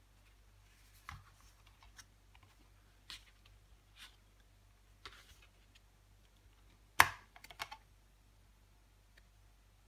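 Light clicks and taps of a cardboard CD digipak and its plastic disc trays being handled, about one a second. About seven seconds in comes one loud sharp click, followed by a few lighter clicks, as a CD is popped off the tray's centre hub.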